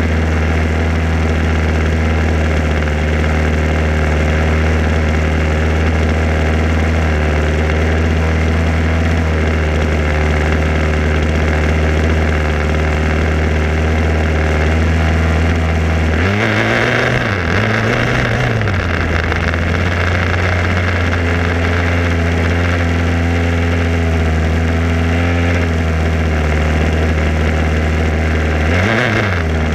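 HPI Baja 5B SS's two-stroke petrol engine, heard close from on board, idling steadily. About halfway through it is throttled up in a few quick revs as the buggy drives, then drops back to idle. It revs again briefly near the end.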